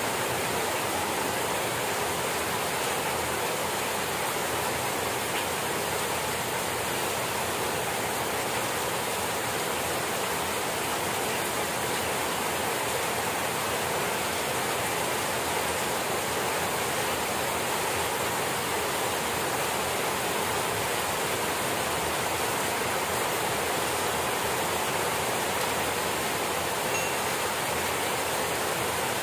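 Heavy rain pouring down steadily, an even hiss that does not let up.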